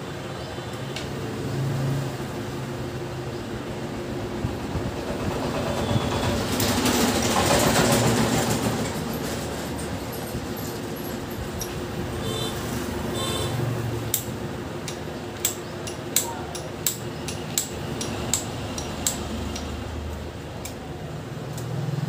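Steady background traffic noise that swells as a vehicle passes, about a third of the way in. In the second half comes a run of about a dozen sharp metal clinks as tools and parts knock against the bare motorcycle engine crankcase.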